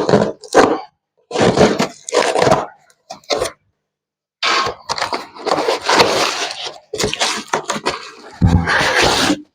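Packaging being wrestled open by hand: short bursts of scraping, crackling and tearing, with a heavier, deeper knock near the end.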